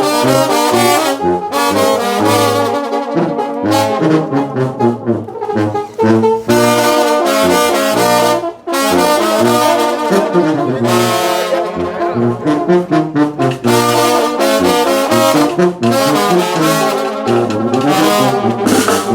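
Sinaloan banda playing live: trombones and trumpets carry the melody over moving bass notes.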